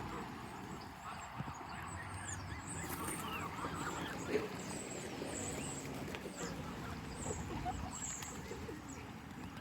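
A flock of geese and ducks honking and calling over one another as they crowd in for thrown food, with thin high chirps over the top.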